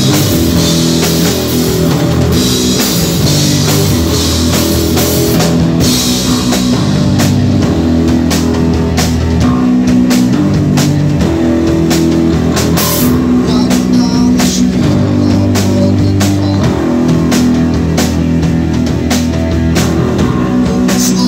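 Live rock band playing: electric guitars over a drum kit, with cymbals washing through the first six seconds, then steady sharp drum strokes.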